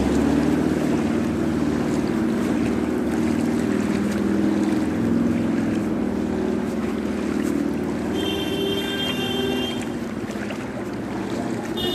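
A motor vehicle's engine running steadily while moving through flood water on a road, with water churning under it. About eight seconds in, a high-pitched horn sounds for about a second and a half.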